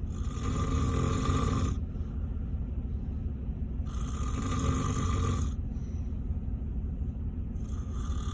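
A middle-aged man snoring extremely loudly in his sleep, with rumbling, rasping breaths. Three long snores, each about a second and a half, come roughly every four seconds over a steady low rumble.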